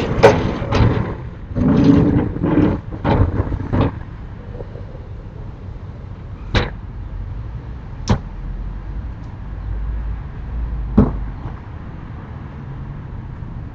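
Sliding storm shutters (amado) on a house's upper floor rattling and scraping along their track in a string of noisy bursts over the first few seconds, followed by three separate sharp knocks spread out over the rest.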